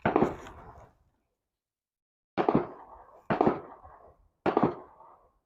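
Four sharp bangs from a 12-gauge pump-action shotgun firing rifled slugs: one right at the start, then three about a second apart after a pause of more than a second, each dying away quickly.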